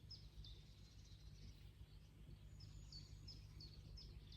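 Faint bird calls: short, high chirps that sweep downward, repeated two or three a second with a pause in the middle, over a low steady background rumble.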